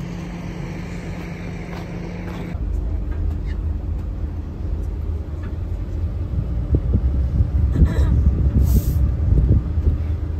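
Motorcoach engine: at first a steady idling hum by the coach's open door, then, from about two and a half seconds in, the deep low rumble of the coach driving, heard from inside the cabin, with irregular bumps and rattles and a short hiss near the end.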